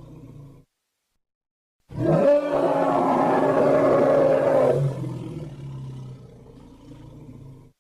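A loud animated scream sound effect. It starts abruptly about two seconds in, sweeps up in pitch, holds for about three seconds, then trails off slowly. The faded end of a previous scream is heard at the very start.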